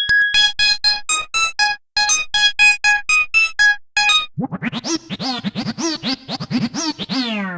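Electronic phone ringtones from an Android 0.9 set. First a short synth-keyboard melody of quick, evenly spaced notes plays twice. About four seconds in it gives way to a different tone: a buzzy synth note that warbles rapidly in pitch and slides downward at the end.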